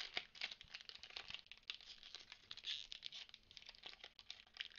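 Foil wrapper of a Pokémon TCG booster pack crinkling and crackling in the hands as it is worked at to tear it open, a faint, irregular run of crackles.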